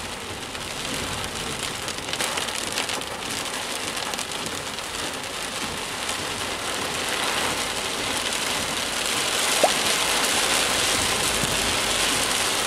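Heavy rain falling on a moving car's windshield and body, heard from inside the car as a steady hiss that slowly grows louder.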